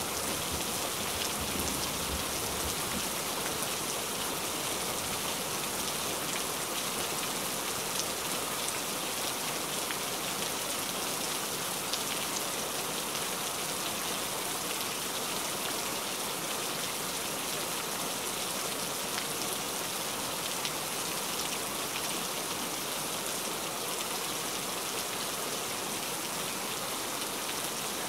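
Heavy rain falling steadily, a dense even hiss of drops, with the last of a low thunder rumble fading out about a second in.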